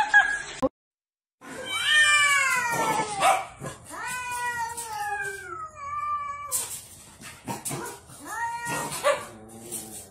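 Cats yowling at each other in a standoff: long drawn-out wailing calls that slide down in pitch, several in a row, with a pause about six seconds in before a shorter call.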